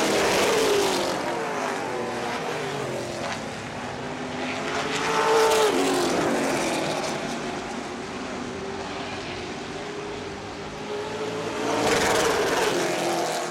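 Late model stock car engines racing on a short oval track. The pitch rises and falls as the cars pass, loudest about five seconds in and again near the end.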